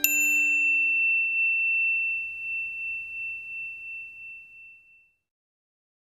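A single struck chime note, the last of a short run of chime notes, ringing on one high tone and slowly fading out over about five seconds, then silence.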